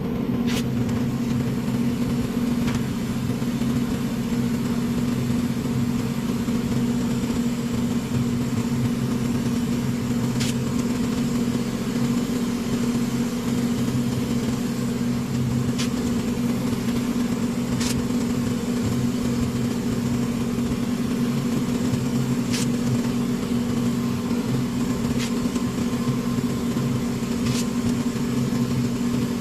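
Steady mechanical hum of a running motor, unchanging throughout, with a few faint ticks here and there.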